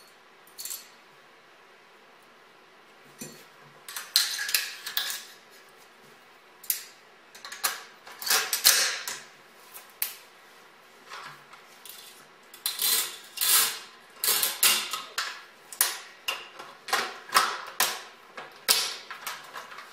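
AR-15 rifle being reassembled by hand: sharp metal clicks, snaps and rattles as parts are slid and pinned back into place. They are sparse at first and come thick and fast over the second half, ending in the rifle's function check.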